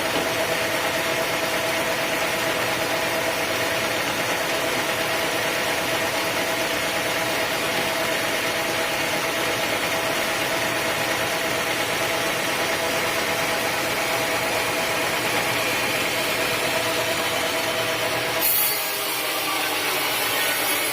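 Sawmill saw running steadily on teak wood with a constant hum. About eighteen seconds in, the sound shifts suddenly to a brighter, hissier one.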